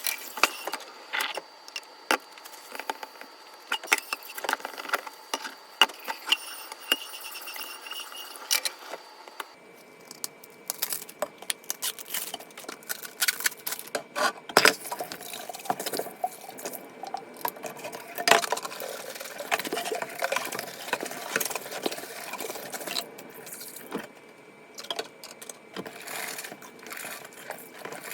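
Cleaning sounds: many small clinks, taps and knocks of hard household items being handled, irregular and close. The background changes abruptly about ten seconds in.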